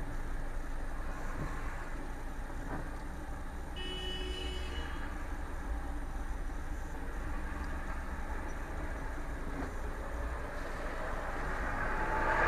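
Street traffic heard from inside a car's dash cam: a steady low rumble of idling engines and road noise. A short car horn toot sounds about four seconds in, and the traffic noise swells near the end.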